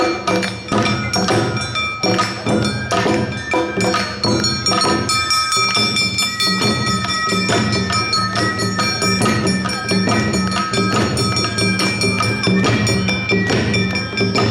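Awa odori festival band (narimono) playing the fast two-beat dance rhythm: taiko drums and a small hand-held kane gong struck over and over, with a bamboo flute (shinobue) holding high notes above.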